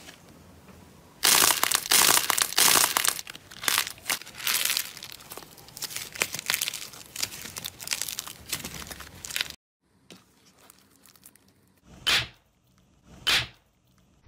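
Hands kneading and squeezing fluffy slime mixed with bits of foil: dense, close crackling and crinkling that cuts off sharply about ten seconds in. After a quieter stretch, a plastic bottle squeezed in the hands gives two short, loud crunches.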